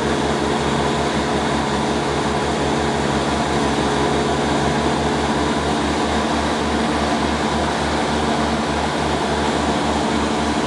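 Cessna light airplane's piston engine and propeller droning steadily, heard from inside the cabin in flight, with an even, fast low pulsing from the propeller.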